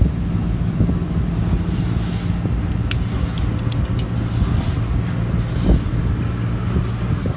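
A motor running steadily with a low hum, and a few light, sharp clicks about three to four seconds in.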